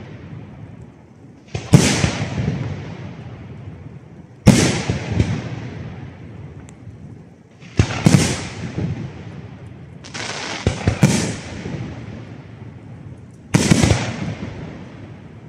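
Aerial firework shells bursting overhead: six sharp bangs, about one every three seconds, with two close together about two-thirds of the way in. Each bang is followed by a long, fading echo.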